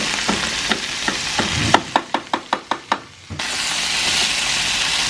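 Chicken pieces, sliced mushrooms and flour sizzling in hot oil in a frying pan as they are stirred with a wooden spatula. Partway through, the sizzle drops away for about a second and a half and a quick run of sharp knocks, about five a second, takes its place before the sizzling resumes.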